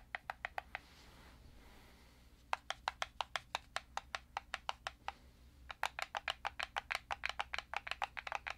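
The side door panel of a Mechlyfe Ratel XS rebuildable AIO vape rattling loose in its frame as the device is shaken: rapid light clicking, about eight clicks a second, in three bouts with short pauses. The rattle is the sign of a loose-fitting door, a flaw the reviewer can't stand.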